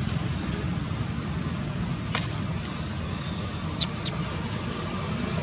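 Steady outdoor background noise, a low rumble with hiss, like distant road traffic, with a few short sharp clicks about two seconds in and again near four seconds.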